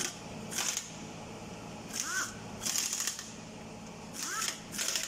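Pneumatic impact wrench running in five short bursts on bolts at the top of a V8 engine, several bursts starting with a quick rising whine as the air motor spins up.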